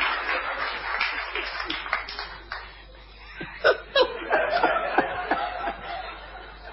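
Studio audience laughing and clapping after a joke, dense at first and thinning out after about two and a half seconds. A couple of sharp clicks come about four seconds in.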